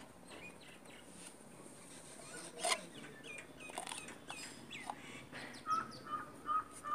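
Birds calling in the background: a few short chirps, then a quick run of short, evenly repeated calls, about two or three a second, near the end. A sharp click sounds about two and a half seconds in.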